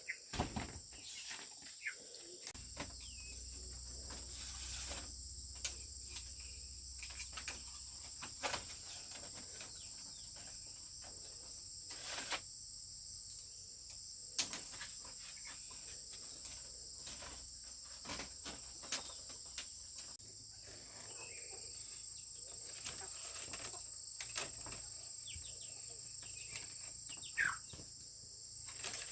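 Crickets or other insects chirring steadily in a high, continuous band. Scattered knocks and taps at irregular intervals run throughout.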